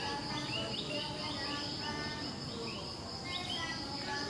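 Steady high-pitched drone of insects, cicadas or crickets, with short chirping calls repeating over it several times a second.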